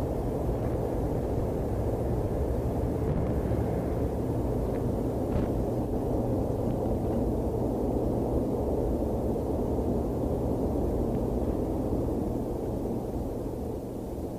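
Steady low rumble of Norfolk & Western Class J steam locomotive #603 and its passenger train, on a 1957 field tape recording with a low hum under it. The rumble eases off slightly near the end.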